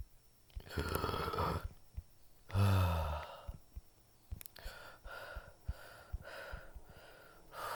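A man's voice acting out breath sounds: a sharp breathy gasp, a short groan that falls in pitch, then steady panting at about two breaths a second.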